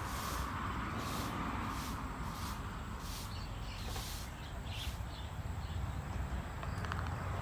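Dog chewing its food: short crunching sounds repeat about every half second over a steady low background rumble.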